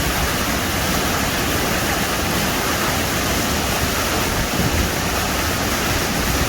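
Steady rushing of water, an even noise with no breaks.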